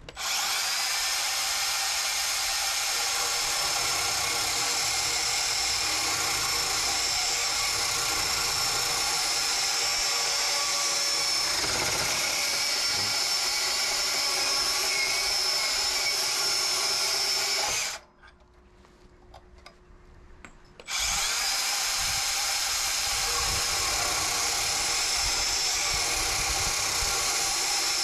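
Makita DPB184 brushless cordless band saw running and cutting through a rusty metal pipe: a steady, high-pitched hissing whine of the blade in the metal. About two-thirds of the way through it drops out for some three seconds, then carries on.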